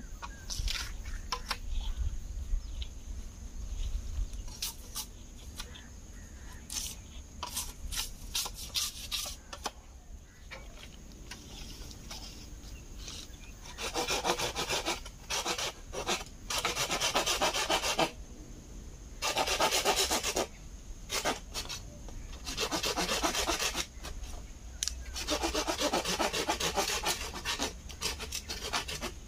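A green bamboo pole being sawn through by hand: four bursts of quick saw strokes with short pauses between, starting about halfway in. Before that, scattered knocks and rustles as the pole is handled.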